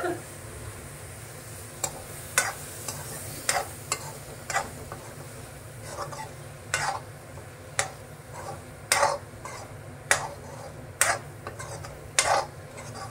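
Green peas being stirred and sautéed in spiced tomato masala in a kadhai, the utensil scraping the pan in short strokes about once a second, with the masala frying underneath.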